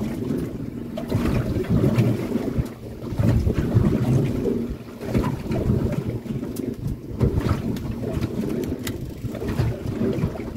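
Wind buffeting the microphone on a small fishing boat at sea: an uneven low rumble with the wash of the water, and a few light clicks here and there.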